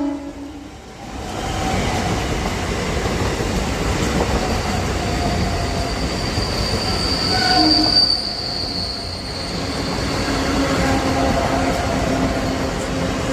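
Mumbai Central Line local train running by on the track, a steady rush of wheels on rail. A high wheel squeal comes in about four seconds in, is loudest around eight seconds, and fades out by about nine seconds.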